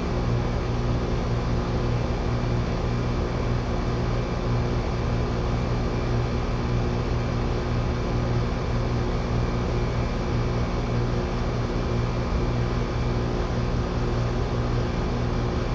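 Heat pump system running steadily: a constant electrical hum from the compressor under a fan's even whoosh, with no change throughout. The system is running low on R-410A refrigerant.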